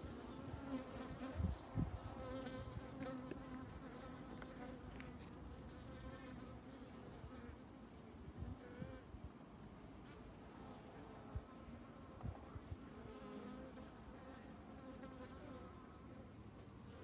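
Honey bees buzzing over exposed comb in an opened hive, a steady hum. A couple of soft thumps come about two seconds in.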